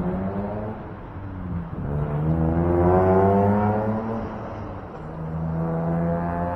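Motor vehicle engines accelerating, their pitch climbing. The sound swells to its loudest about three seconds in, then eases, with a steadier engine hum in the last second or so.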